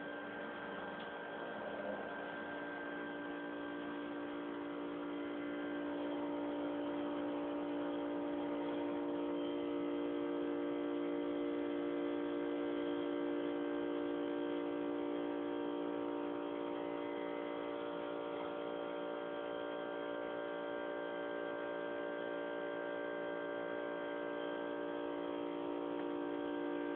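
A steady electrical hum made of several tones at once, growing a little louder and fuller about six seconds in.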